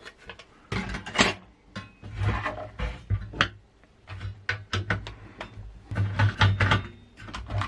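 Parts of a dismantled LCD monitor being handled: an irregular series of clicks, knocks and rattles of plastic and sheet metal, over a faint steady low hum.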